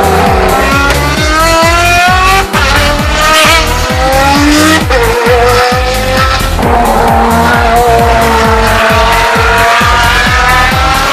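Ferrari FXX's 6.3-litre V12 racing engine at high revs, its pitch climbing through each gear and dropping sharply at the upshifts, about two and a half and five seconds in. Music plays underneath.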